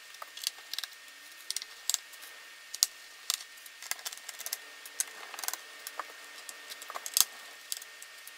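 Irregular sharp clicks and light rattles of a small screwdriver and loose screws against the plastic bottom case of a Dell Inspiron M5010 laptop as its base screws are taken out, with two louder clicks about three seconds in and near the end.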